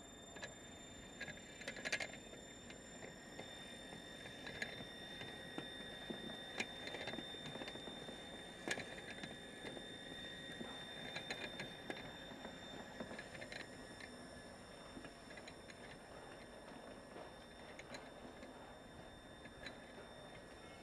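Ishikawa-type stirring mortar grinder running on test, its pestles turning through water in the bowl: a faint steady high whine with scattered light clicks and knocks.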